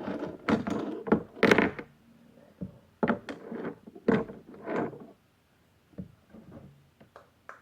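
Funko Pop packaging being handled and turned over: a run of rustles and knocks, busiest in the first two seconds, then a few separate ones that thin out.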